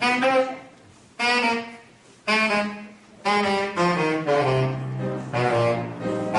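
Saxophone playing an instrumental phrase: four short, separate notes about a second apart, then a run of quicker notes over a lower held note.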